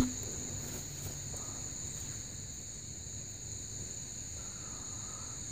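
A steady, high-pitched insect chorus trilling without a break.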